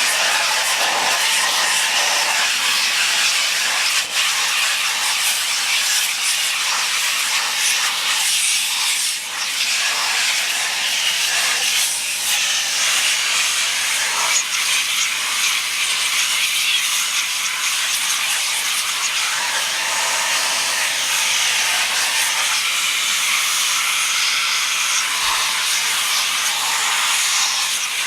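Electric vacuum run as a blower, blowing a steady stream of air to blow bees off the honey frames and out of the hive boxes.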